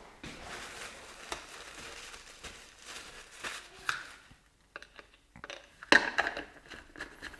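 Paper towel rustling and crumpling as a plastic bottle is wiped down. About six seconds in come sharp plastic clicks and scrapes as a trigger-spray head is screwed onto the bottle.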